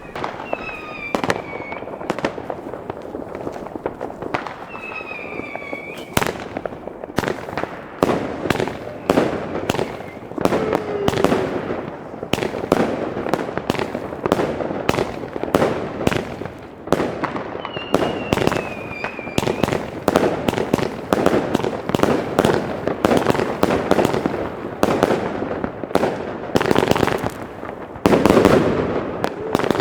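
Iskra Kameleon consumer firework battery firing a rapid, continuous string of shots and bangs. A few short whistles fall in pitch, and the bangs come thickest near the end.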